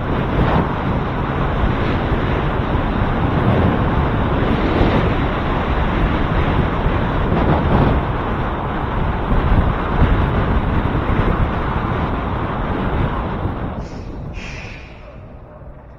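Wind buffeting the microphone of a camera on a moving bicycle, mixed with road rumble, a steady loud rush. It dies down near the end as the bike slows, with a couple of short, sharper sounds.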